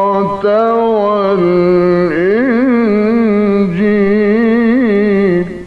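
A male Quran reciter chanting in the ornamented mujawwad style, holding one long drawn-out note. His pitch turns and wavers in quick ornaments, with a short break just after the start, and the voice stops shortly before the end.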